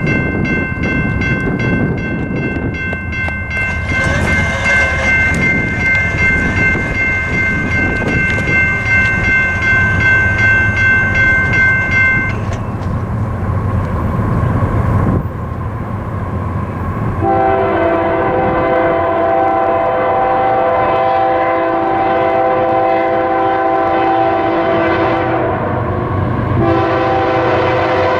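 A General Signals Type 2 electronic crossing bell rings steadily, stopping about twelve seconds in once the gates are down. About five seconds later the horn of an approaching BNSF GE ES44AC freight locomotive sounds a long chord, breaks off briefly near the end, and sounds again, over a low steady rumble.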